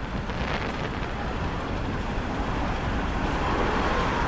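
Steady low outdoor rumble with no bangs, a lull between fireworks bursts, growing slightly louder toward the end.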